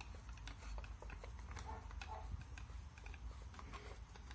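Faint, irregular small clicks and ticks of a long screwdriver turning the stock bolt that draws a shotgun's frame down onto its wooden stock.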